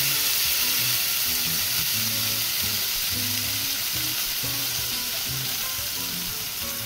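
A sauce-dipped tortilla and a rolled enchilada frying in hot oil in a skillet, a steady sizzle.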